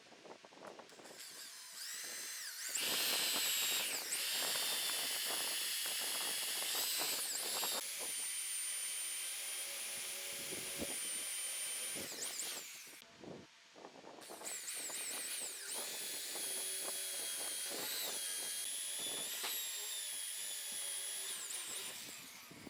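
Small high-speed electric power tool whining in two long runs, with a short stop about thirteen seconds in; its pitch dips briefly several times.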